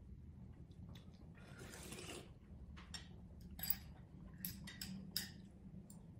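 Metal spoon and chopsticks clicking and scraping against a heavy black soup bowl as the noodles are stirred and lifted, with a run of sharp clicks in the second half.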